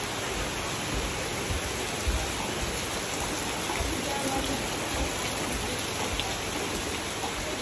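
A steady, even rush of water noise that holds without a break.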